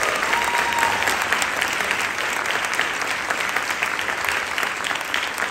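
Audience applauding: dense, steady clapping from a full theatre.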